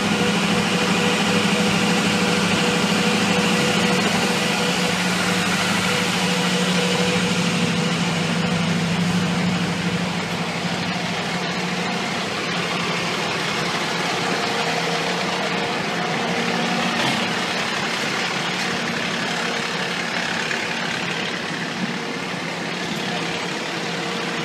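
Fire truck's diesel engine idling steadily, a continuous drone with a steady hum.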